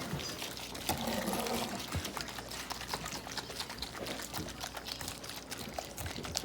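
Watery slime mix sloshing inside a small plastic container that is being shaken by hand, with many small clicks and knocks from the container. The mix is still runny and has not yet thickened.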